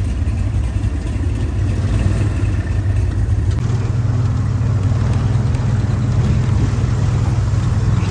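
A vehicle engine running steadily at low revs, its rumble growing heavier about three and a half seconds in.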